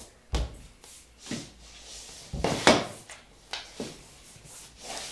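Irregular wooden knocks and thumps as a Kallax shelf panel is handled and set down on a laminate floor, about six in all, the loudest about two and a half seconds in.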